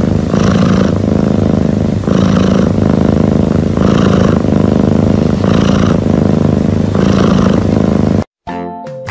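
Sleeping domestic cat making a loud, continuous rumble that swells and eases with each breath, about every second and a half.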